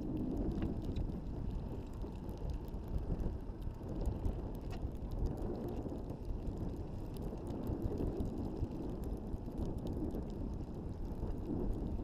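Steady low rumble of a trolling fishing boat under way, its motor running, with wind on the microphone.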